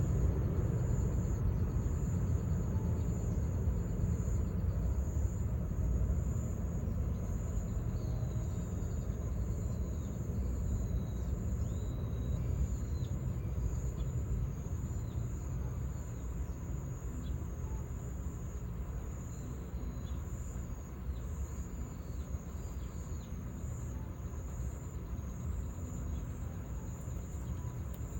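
Insects trilling steadily at a high pitch over a low, steady rumble, with a few faint short chirps in the middle.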